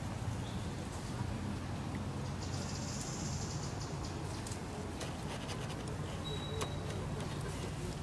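Outdoor woodland background: a steady low rumble, with a short high hiss about two and a half seconds in and scattered light clicks and a brief high chirp in the second half.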